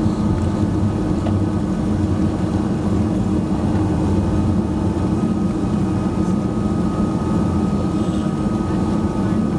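Cabin noise of a Boeing 737-200's Pratt & Whitney JT8D-17 engines running steadily, a low drone with a thin steady whine over rushing air.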